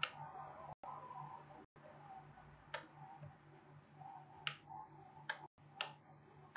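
Computer mouse clicking, about five short sharp clicks spaced irregularly, over a faint steady low hum.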